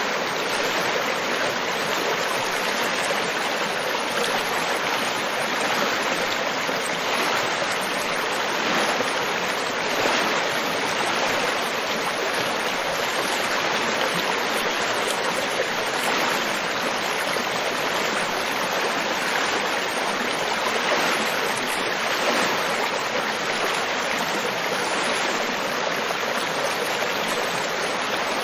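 River water flowing in a steady, even rush, with no let-up or change.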